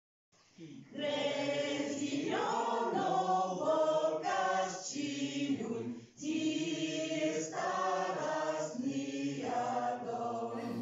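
Choir singing held notes, with a brief pause about six seconds in.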